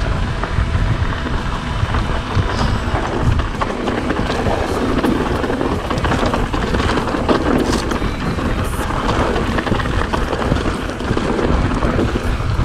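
Continuous riding noise from a mountain bike on a stony trail: a heavy rumble of wind on the microphone mixed with tyres crunching and rattling over rocks and gravel, with scattered small clicks.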